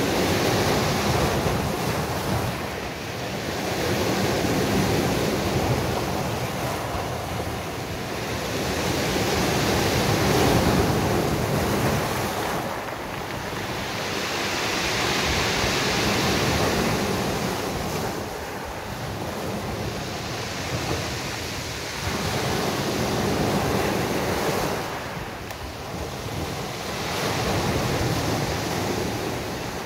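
Sea surf breaking on a beach, the wash swelling and easing every five or so seconds as each wave comes in and draws back.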